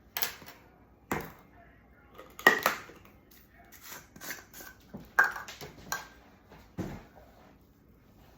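A measuring spoon clinking against kitchen dishes: about six sharp taps with a short ring, the loudest about two and a half and five seconds in, as adobo seasoning is measured out.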